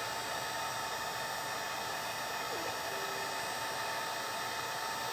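Wagner heat gun on its low setting blowing hot air, a steady, even hiss with a faint thin whine, heating a laptop board's factory solder to free a stubborn jack.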